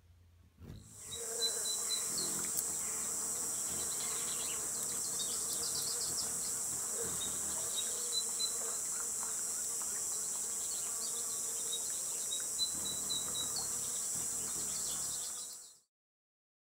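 Steady high-pitched insect buzzing with short high chips over it now and then. It comes in about a second in and cuts off abruptly near the end.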